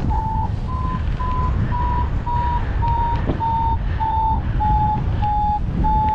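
Paragliding variometer beeping in short tones about twice a second, the pitch wandering slightly: its climb tone, the sign of flying in rising air. Heavy wind rumble on the microphone from the airflow in flight.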